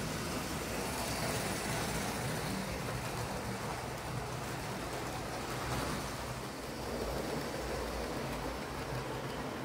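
Hornby OO-gauge Britannia steam-outline model locomotive running steadily on track: an even motor hum under a wash of wheel-on-rail rumble and hiss. It is running again after its bent motor casing was straightened so the gears no longer lock up.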